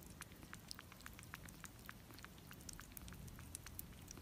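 Faint, uneven little wet clicks of a kitten's tongue and mouth suckling at the tip of a feeding syringe, several a second.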